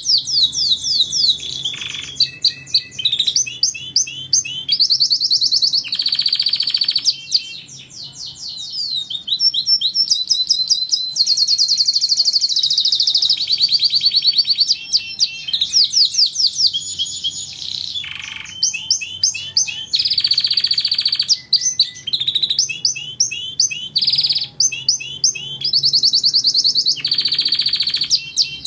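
Domestic canary singing a long, loud song of fast trills and rapidly repeated chirping notes, phrase after phrase with only short breaks.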